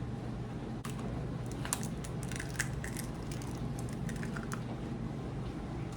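Eggs being tapped and cracked on the rim of a mixing bowl: a scatter of small cracks and crunches of eggshell in short clusters, over a steady low hum.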